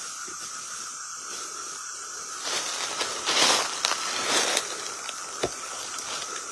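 A steady high drone of night insects runs throughout. Over it come bursts of rustling hiss from about two and a half to nearly five seconds in, followed by a single sharp click.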